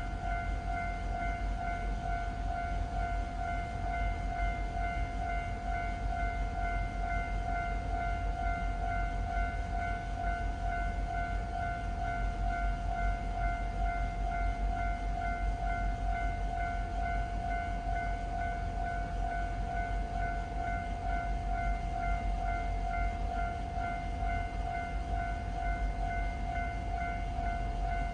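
Japanese railway level-crossing warning bell ringing steadily in a repeating kan-kan pattern, over a continuous low rumble.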